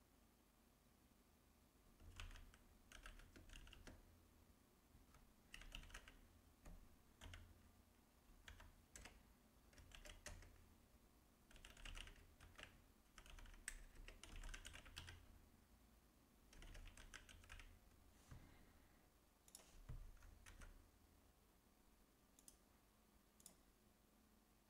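Faint typing on a computer keyboard: bursts of quick keystrokes starting about two seconds in, with pauses between, thinning to a few single key presses near the end.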